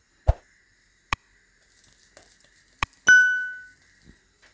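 Subscribe-button sound effect: two sharp clicks followed by a bright bell ding that rings out and fades within a second. Just before, a dull thump from the dough ball being slapped between the palms.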